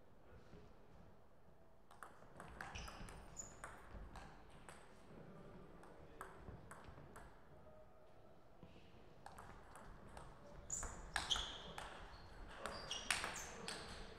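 Table tennis ball ticking sharply off paddles and the table in a rally, about two seconds in. A second, louder run of quick ticks follows from about nine seconds on.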